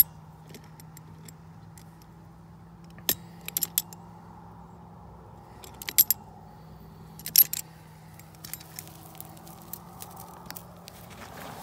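Sharp metal clinks of a wrench working the bolt of a ground rod clamp on bare copper ground wire, a few single clicks and short clusters, the loudest about 6 and 7.5 seconds in. Lighter ticks follow as the copper wire is handled, over a steady low hum.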